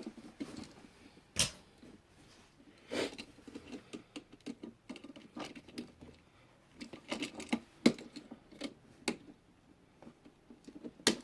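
A screwdriver loosening the ground screw and the old electrical receptacle being worked out of its wall box: irregular small clicks, scrapes and knocks of tool, screws and plastic, with a sharper click about a second and a half in and another near the end.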